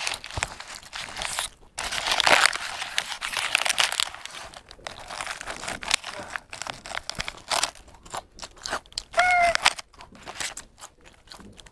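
Crunchy bites and chewing of a crisp breaded fried chicken cutlet (Taiwanese-style jipai), with the white paper bag around it crinkling in the hands. The crunches come irregularly, loudest about two seconds in.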